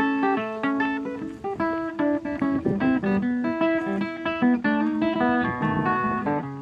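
Background music: a plucked guitar playing a quick run of notes.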